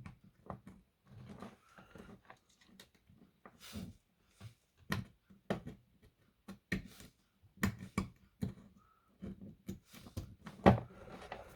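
Scattered, irregular light clicks and taps of small electronic parts and tools being handled on a workbench, with a brief faint beep about nine seconds in.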